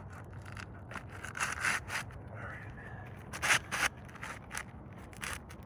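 Irregular scraping and crackling of old, brittle asphalt shingles being lifted and handled, loudest about a second and a half and three and a half seconds in.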